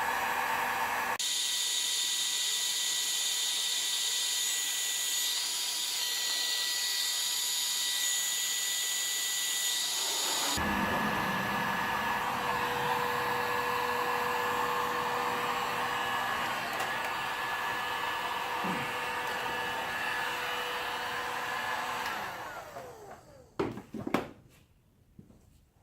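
Heat gun blowing steadily, warming glued-in wiring connectors on a transmission park/neutral switch to soften the glue. The sound changes abruptly twice, then the gun is switched off and winds down after about 22 seconds, followed by a couple of short knocks.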